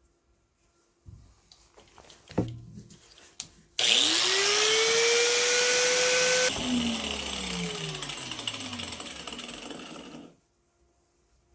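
Handheld electric grinder switched on, whining up to speed and running hard for about two and a half seconds, then switched off and winding down over several seconds. It is preceded by a few knocks and clatters of the tool being handled.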